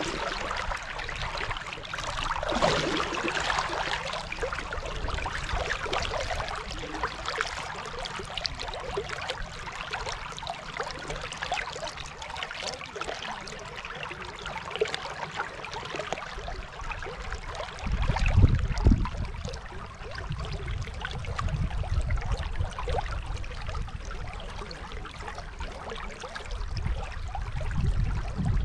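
Steady rush of flowing water of the Dunajec river, broken by bouts of low rumble about two-thirds of the way through and again near the end.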